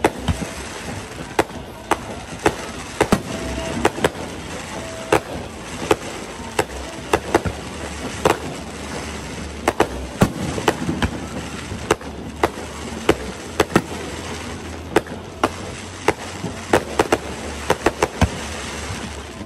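Fireworks shells bursting overhead: an irregular string of sharp bangs, sometimes two or three a second, over a steady background noise.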